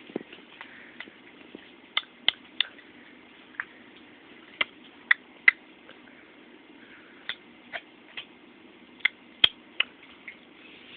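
An eight-month-old baby clicking its tongue: sharp single clicks, mostly in short runs of two or three, with pauses of a second or two between runs.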